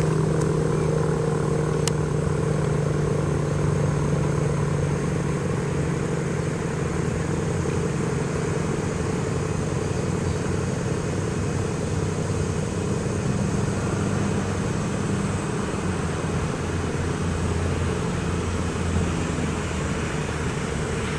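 ACA P-50 tornado siren winding down at the end of its test: a low steady tone that fades out over the first several seconds. A low rumbling hum stays underneath.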